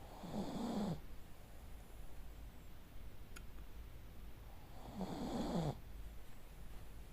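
A sleeping pug snoring: two rough snores about five seconds apart, each lasting about a second and dropping in pitch.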